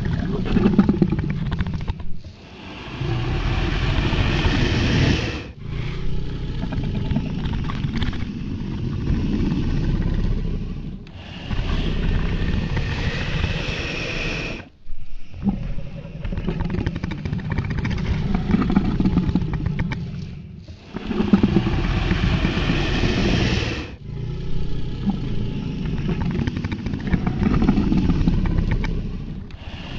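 Sound-effect dragon roars and growls: a string of deep, rough calls, each a few seconds long, with short breaks between them.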